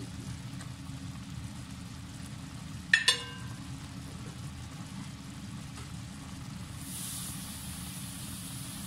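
Chicken pieces simmering in sauce in a pot on the stove, with a steady low hum throughout and a faint sizzle. One sharp, ringing metallic clink about three seconds in; a faint high hiss comes in near the end.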